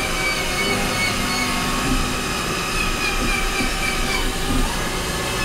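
Tornos DT 26 Swiss-type CNC lathe cutting a titanium bone screw under flood coolant: a steady whine of several held tones, one wavering slightly, over a continuous hiss of spraying coolant.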